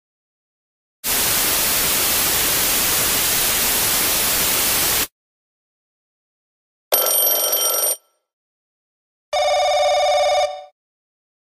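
Steady rain hissing evenly for about four seconds, then stopping abruptly. After a pause comes a short ring of a classic telephone bell, and then the rapid pulsing trill of an electronic telephone ringer.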